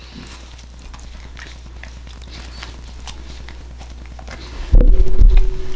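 Close-miked eating sounds: soft chewing and mouth clicks. About four and a half seconds in, a sudden loud, low sound with a steady pitch lasts under a second.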